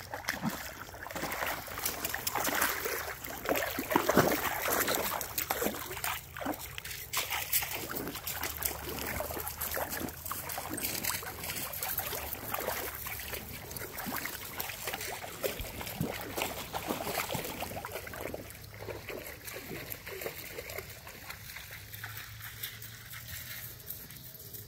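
Shallow creek water splashing and sloshing as a dog wades through it, a dense run of irregular splashes. They are loudest over the first several seconds and grow softer toward the end.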